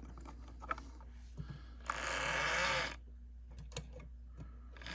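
Small pancake motor of an Ibertren HO-scale Talgo model locomotive running on a test run, with a whirr for about a second starting about two seconds in and starting again near the end, between scattered light clicks.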